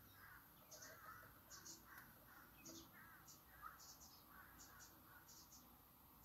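Faint surface noise from a spinning 78 rpm shellac record with the needle in the run-out groove: soft scratchy ticks repeating about every three-quarters of a second.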